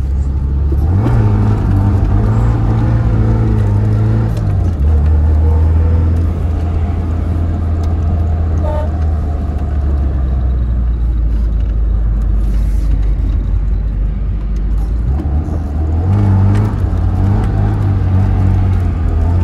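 Tofaş Şahin's engine and exhaust while driving: a steady low drone whose pitch steps up about a second in, drops to a lower note near five seconds in, and climbs again around sixteen seconds in.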